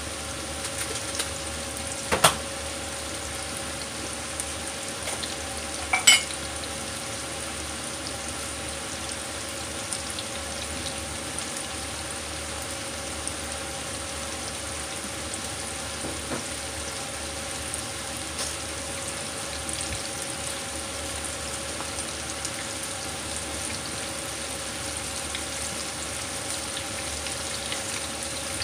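Pieces of coated chicken thigh (karaage) frying in hot oil in a frying pan: a steady sizzle. Two sharp clicks cut through it, a small one about two seconds in and a louder one with a brief ring about six seconds in.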